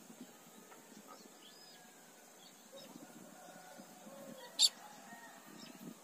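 Faint, scattered bird chirps over quiet outdoor ambience, with a single sharp click about four and a half seconds in.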